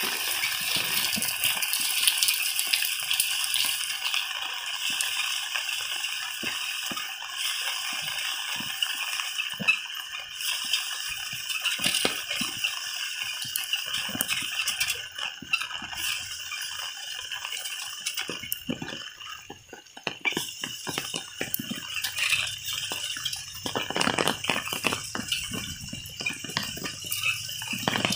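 Heavy rain falling steadily, with many short ticks of drops and splashes landing close by.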